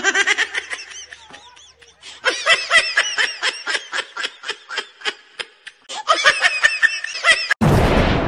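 People laughing loudly in rapid, high-pitched 'ha-ha-ha' pulses, about four a second, in several bursts. Near the end the laughter gives way to a sudden loud rush of noise.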